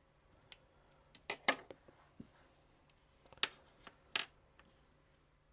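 Scattered light clicks and taps of a small metal tool against the hard plastic parts of a vintage G.I. Joe action figure as an O-ring is worked on. The sharpest clicks come about a second and a half, three and a half and four seconds in.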